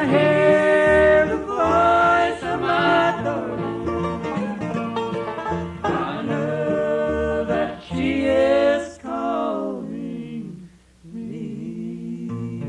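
Bluegrass band playing, with banjo, guitar, mandolin and upright bass under voices singing in harmony. About ten seconds in the music drops away briefly, then comes back softer.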